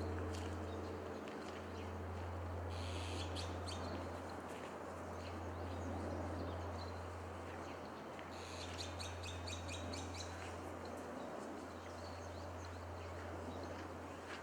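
Lingering hum of Zojoji Temple's great bronze bonshō after a strike: a low tone that swells and fades in slow waves about every three seconds, its higher tones dying away in the first few seconds. Small birds chirp over it twice, about three seconds in and again around eight to ten seconds.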